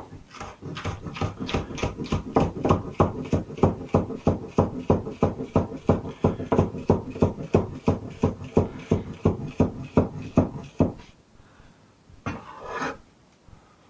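Cleaver chopping spring onions on a wooden chopping board, a steady run of knocks at about four a second that stops about eleven seconds in. Shortly after comes a brief scrape of the blade across the board as the sliced onion is gathered up.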